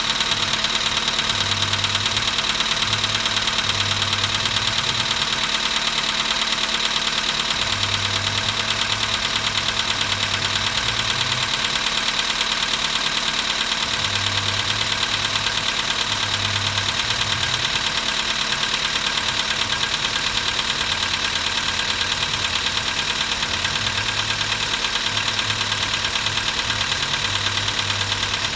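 Volkswagen Polo Sedan's CFNA 1.6-litre four-cylinder petrol engine idling cold with a steady, fast, even knock: the cold-start knock of an engine at 135,000 km.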